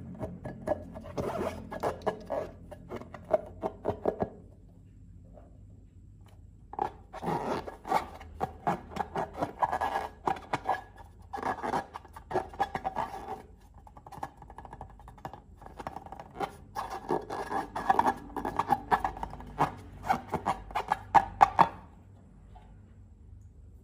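Crackling clicks and scraping from slime being handled and worked, in two long runs with a pause of a few seconds between them.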